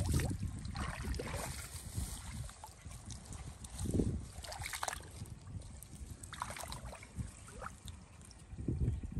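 Irregular splashing and sloshing in a shallow muddy puddle, with dry grass and stalks rustling, in short scattered bursts.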